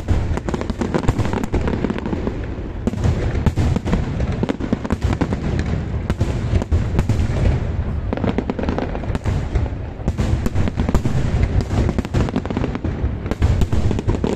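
Aerial fireworks display: many shells bursting in quick, overlapping succession, with dense crackling over a continuous low rumble.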